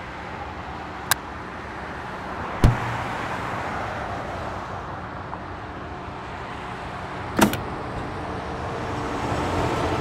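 A steady rushing noise that slowly swells, broken by three sharp clicks, the second with a low thud.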